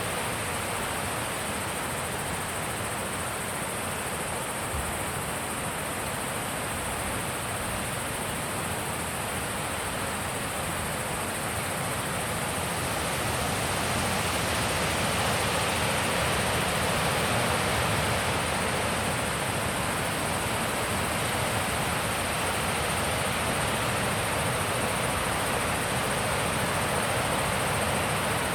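Wind blowing in a steady, even rush that swells a little about halfway through, with a thin steady high-pitched tone above it.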